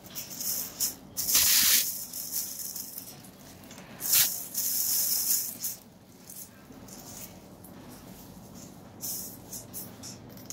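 Thin plastic bag crinkling and rustling as it is peeled off a toy figure, in bursts: a long one about a second in, another around four seconds, and a short one near the end.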